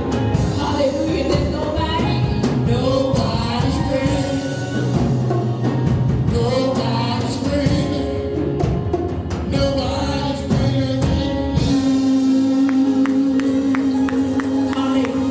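Live gospel worship music: singing over a band. About twelve seconds in, the low end falls away, leaving a held note with quick light taps.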